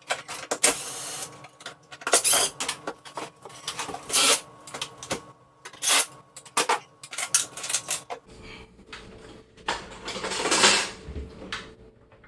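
DeWalt cordless driver run in short, irregular bursts, backing out the top mounting screws that hold an over-the-range microwave to the cabinet, with a longer run near the end.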